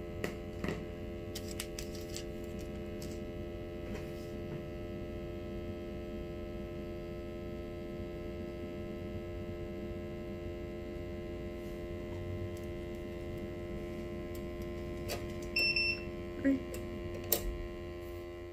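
Steady electrical hum made up of several fixed tones, with a few light clicks and taps, the loudest of them a couple of seconds before the end.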